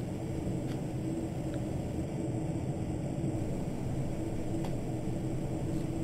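Steady low background hum and rumble with a faint constant tone, without distinct clicks or handling sounds.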